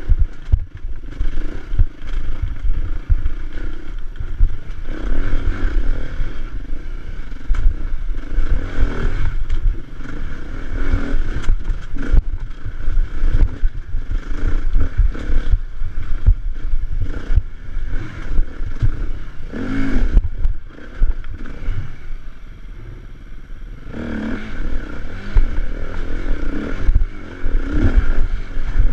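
Off-road motorcycle engine running and revving under load while climbing a rough uphill trail, with rattling knocks and rumble from the rough ground. The engine eases off briefly about three-quarters of the way through.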